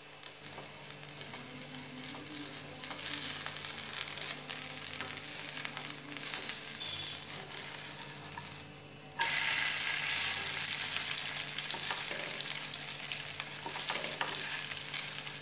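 Rava uttapam frying in oil in a nonstick pan, a steady sizzle. About nine seconds in it is flipped with a spatula, and the sizzling turns suddenly louder as the uncooked batter side goes down onto the hot oil.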